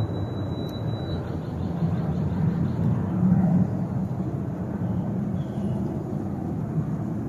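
Steady low outdoor rumble. A thin high whistle sounds for about the first second, followed by a quick run of faint high chirps.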